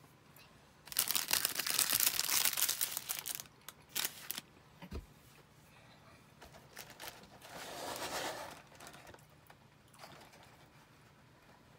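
Clear plastic snack-cake wrappers crinkling as they are handled, a dense crackle lasting about two and a half seconds from about a second in, then a short crinkle and a soft knock. A softer rustle follows near the end.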